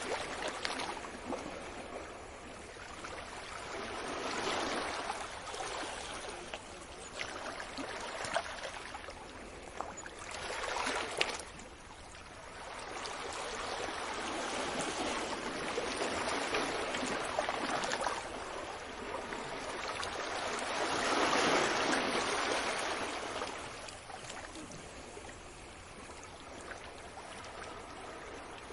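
Surf washing onto a beach: the noise of breaking water swells and ebbs every few seconds, with a few sharper splashes. The loudest wave comes about three quarters of the way through.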